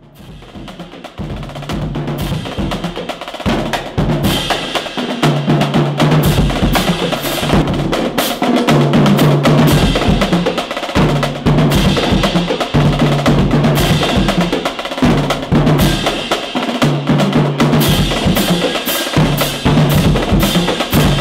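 Background music: a percussion-driven track with a steady drum beat and a repeating low bass figure, fading in over the first couple of seconds.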